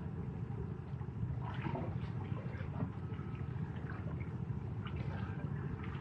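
Sea waves washing on the shore: a steady low rumble with small scattered splashes and clicks.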